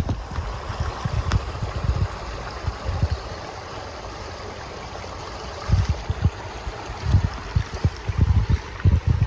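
Outdoor ambience: a steady rushing hiss, like running water, with wind buffeting the microphone in irregular low gusts that grow more frequent in the second half.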